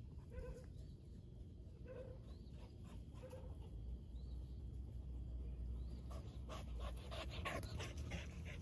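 Dogs panting as they come up to the fence, the panting growing louder and closer over the last few seconds. In the first few seconds faint short calls repeat about once a second over a low rumble.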